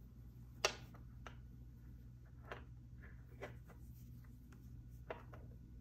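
Faint, irregular clicks of knitting needles tapping together as stitches are picked up and knitted, the sharpest one about half a second in, over a low steady hum.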